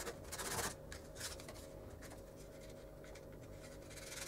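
Scratchy rubbing and scraping of hands working a small wooden block and magnesium rod on a tabletop. The strokes are loudest about half a second in, with a few shorter ones soon after, and pick up again near the end.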